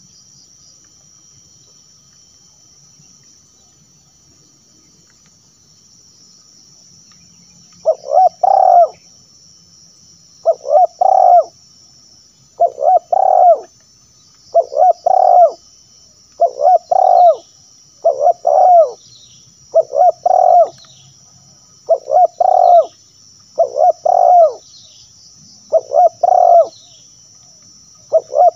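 Spotted dove cooing: a short multi-note coo phrase repeated about every two seconds, starting about eight seconds in. A steady high insect buzz runs underneath.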